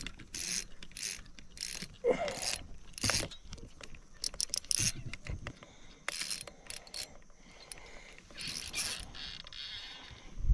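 Fishing reel ratcheting in irregular short bursts as a hooked bass is fought on the line.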